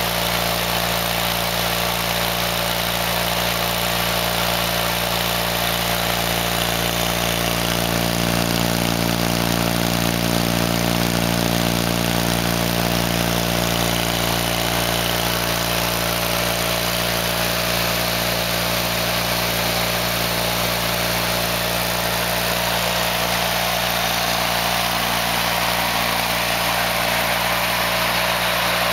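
Engine of a Craftsman GT6000 18 hp garden tractor running steadily at an even speed, a little louder for a few seconds near the middle.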